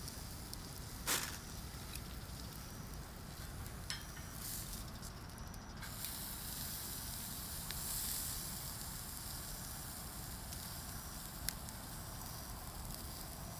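Steak sizzling on a grill over a wood fire, a steady hiss that swells louder twice, with a few sharp pops from the fire, the loudest about a second in.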